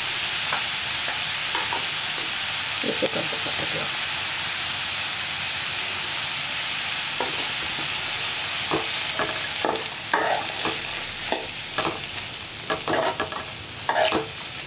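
Chopped broad beans frying in oil in a metal pan, a steady sizzle. From about nine seconds in, a spatula scrapes and clacks against the pan as the beans are stirred, and the sizzle dies down.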